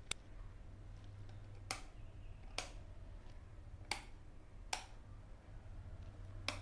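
Six short, sharp clicks at uneven intervals, about a second apart, over a steady low hum.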